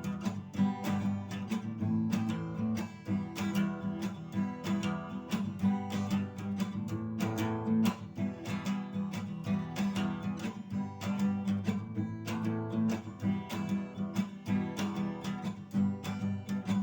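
Acoustic guitar strummed in a steady rhythm, playing chords as an instrumental passage with no singing.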